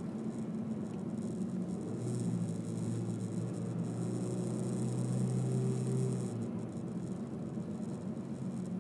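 Honda Civic 1.8 i-VTEC inline-four running as the car drives downhill, heard inside the cabin together with road noise. The engine's note changes for a few seconds in the middle, with a louder low tone and more hiss.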